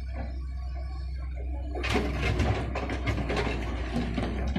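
Doosan wheeled excavator's engine running steadily while its steel bucket digs into rocky soil; from about two seconds in, stones clatter and scrape against the bucket in a dense, irregular run of knocks.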